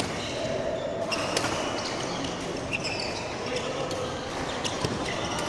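Badminton rally on an indoor court: short high squeaks of shoes on the court floor and a few sharp hits of rackets on the shuttlecock, over a reverberant hall background.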